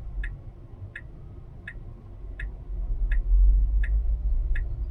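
Tesla turn-signal indicator ticking at an even pace, about one tick every three-quarters of a second, over low road rumble in the cabin that grows louder about three seconds in.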